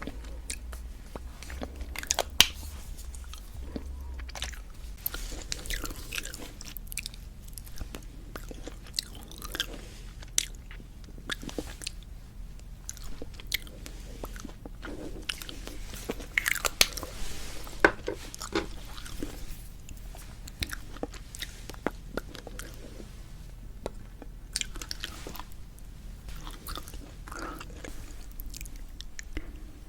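Close-miked ASMR of lipstick being applied: soft waxy rubbing of the lipstick across the lips, broken by scattered sharp clicks and lip smacks.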